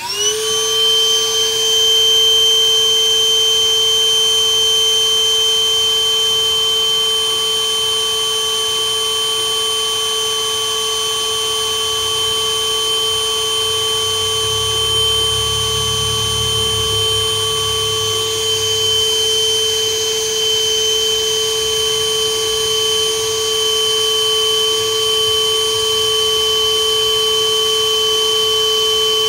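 Wet/dry shop vacuum switched on, its motor whine rising in pitch as it spins up and then running steadily, sucking on a clogged primary AC condensate drain line to clear it. A brief low rumble comes about halfway through.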